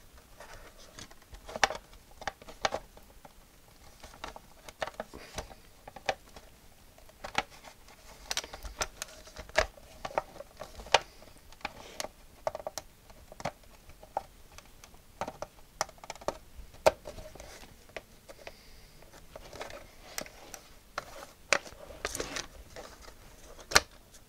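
Handling noise from the plastic case of an Atari XC12 cassette recorder: irregular light clicks, taps and scrapes of plastic as it is moved, turned over and its cable tucked in.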